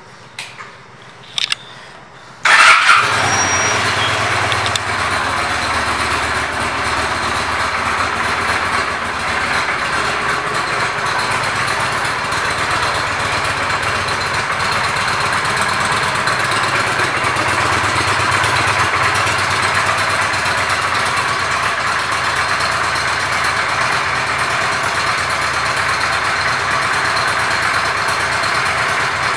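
Honda Shadow Aero's 745 cc V-twin starting about two and a half seconds in, after a couple of faint clicks, then idling steadily.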